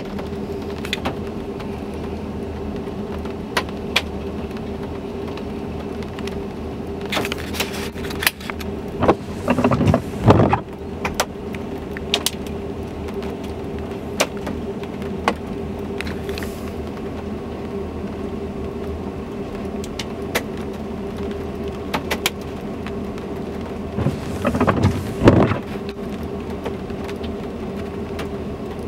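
Small hail and rain falling, with scattered sharp ticks of hailstones striking hard surfaces over a steady low hum. The noise swells louder twice, around ten and twenty-five seconds in.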